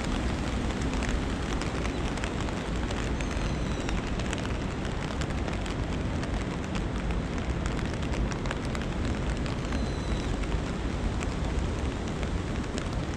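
Steady rain with a scatter of sharp raindrop ticks over a constant low rush.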